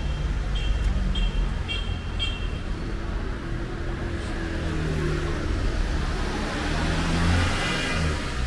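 City street traffic: vehicle engines running close by with a steady low rumble. In the first two seconds there are five short high beeps, about two a second. A vehicle grows louder as it passes near the end.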